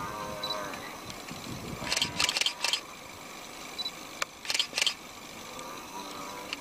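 Camera shutters firing in quick bursts: a run of about four clicks two seconds in and another short burst about four and a half seconds in. Under the bursts are faint low voice-like sounds.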